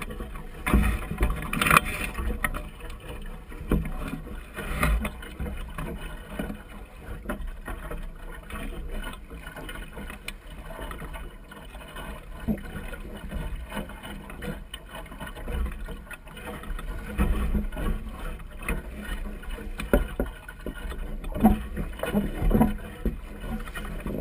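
Water splashing and gurgling irregularly against the hull of a small lateen-rigged sailing dinghy under way, over a low steady rumble.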